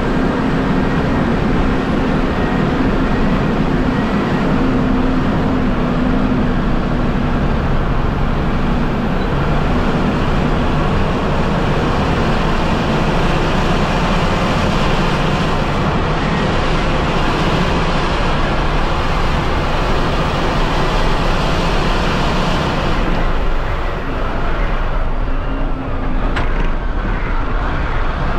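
CAT 740B articulated 6x6 haul truck's diesel engine running steadily.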